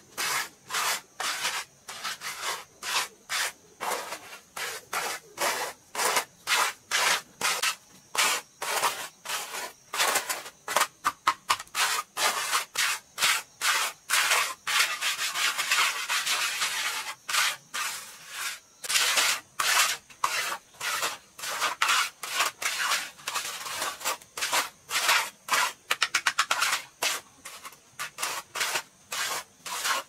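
Flat hand trowel scraping over wet cement as a fresh concrete floor is smoothed, in quick repeated strokes of about two a second. About halfway through the strokes merge into a few seconds of unbroken scraping.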